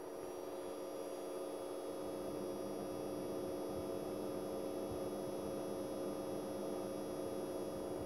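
Fengmi 4K ultra-short-throw laser projector humming steadily, with a thin high-pitched coil whine over the hum, growing a little louder over the first couple of seconds. This electrical noise comes from a brand new unit and is very noticeable when no sound is playing.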